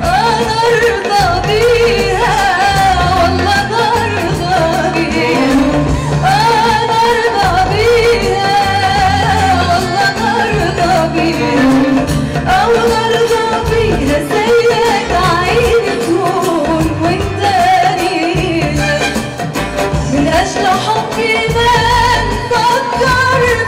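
A woman singing an Arabic tarab song live with an Arab orchestra backing her. Her voice carries a wavering, ornamented melody over a steady, bass-heavy accompaniment.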